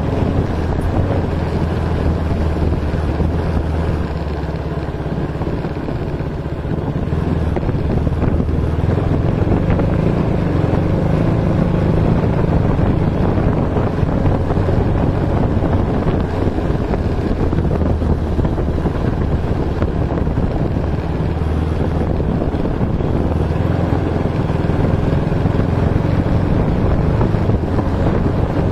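Motorcycle engine running steadily while riding, with wind rushing over the microphone. The engine eases off for a moment about five seconds in, then picks up again.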